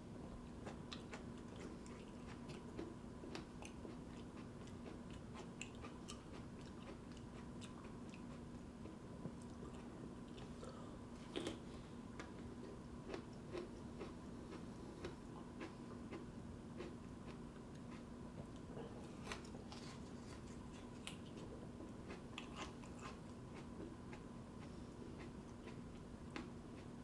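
A raw tomatillo being bitten and chewed: a run of small crunching clicks, with one louder bite about eleven seconds in, over a steady low hum.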